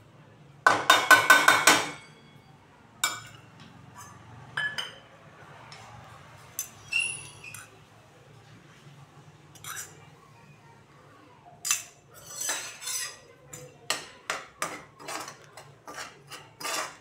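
Steel bowl knocked rapidly against the rim of a pan to empty chilli powder, then scattered clinks of a metal spoon on the pan. Near the end, a metal spatula scrapes and stirs the powder in the dry pan in a run of quick strokes, about two a second.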